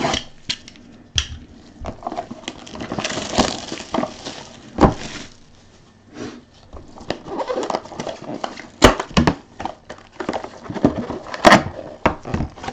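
A sealed box of trading cards being opened by hand: plastic wrap and cardboard crinkling and tearing in irregular bursts, with a longer rustle about three to five seconds in and a few sharp clicks and taps near the end.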